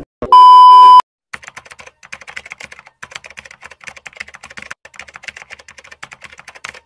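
A loud steady test-tone beep, like that of a TV colour-bar screen, lasting under a second, followed by a rapid run of keyboard typing clicks, a typing sound effect.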